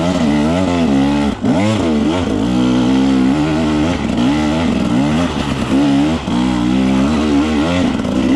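Dirt bike engine under load on a steep rocky climb, the throttle opening and closing again and again so the pitch keeps rising and falling, with a brief drop-off about a second and a half in.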